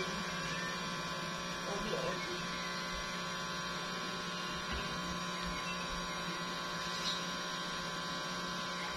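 Steady electrical hum made of several fixed tones, unchanging in level, like a mains-powered appliance or motor running.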